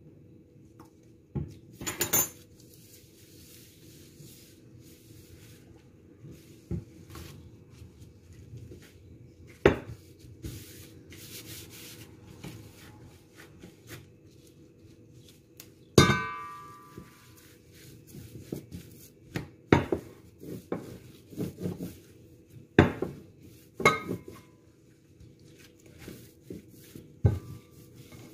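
Scattered knocks and taps of kitchen things on a stone countertop while dough is worked by hand and rolled out with a wooden rolling pin. A single loud ringing clink comes about sixteen seconds in. A faint steady hum runs underneath.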